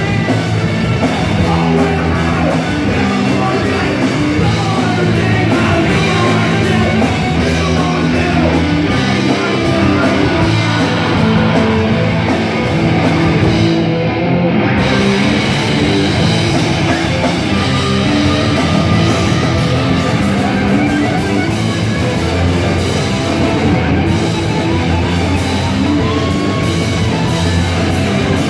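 A rock band playing live and loud, with distorted electric guitars, bass and drums, and a vocalist singing into a microphone, heard from the crowd.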